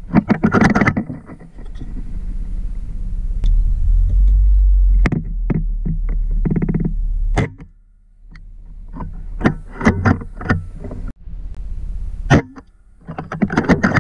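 Handling noise from a rifle-mounted scope camera: clusters of knocks and clicks over a low steady rumble, with one short pitched sound about halfway through.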